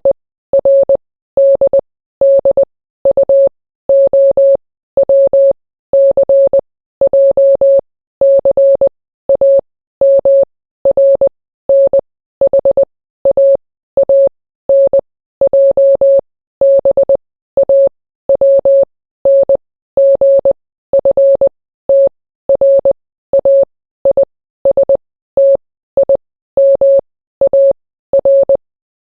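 Morse code practice tone: a single steady mid-pitched beep keyed into short dots and longer dashes, grouped into letters with brief gaps between them. The sending stops shortly before the end.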